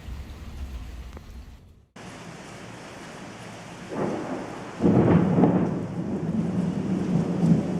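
Thunderstorm: a low rumble cuts out suddenly about two seconds in, then steady rain falls, and a thunderclap rolls in about four seconds in, turning into loud rumbling thunder about a second later.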